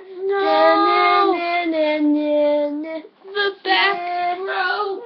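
A child singing without clear words, in long held notes that slide up and down, with a brief break about three seconds in.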